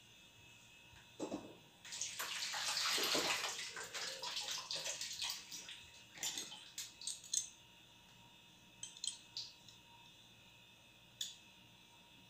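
Water running from a kitchen tap for about three seconds, then scattered light clicks and knocks of kitchen utensils being handled.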